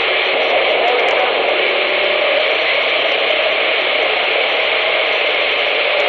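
CB radio receiver hissing with steady static, no station coming through.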